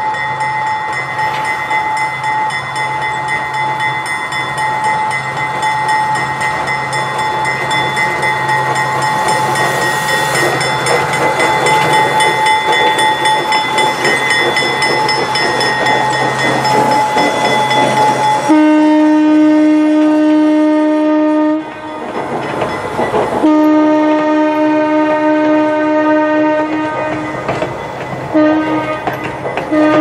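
A narrow-gauge train passing close, its cars' wheels clattering over the rails with the locomotive running. After about eighteen seconds the locomotive's horn sounds a long blast, then a second long blast, then a third that starts near the end.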